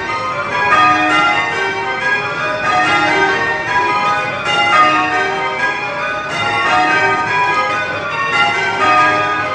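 Light ring of eight tower bells in full-circle change ringing, ringing spliced methods: a steady, even stream of bell strikes, each note ringing on into the next.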